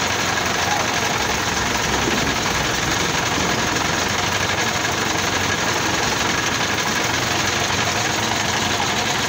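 Crane truck's engine running steadily, an even mechanical drone with no change in pace.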